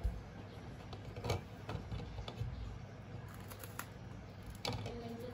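A few faint clicks and knocks of someone eating crackers at a table, the sharpest one near the end, over a low steady room hum.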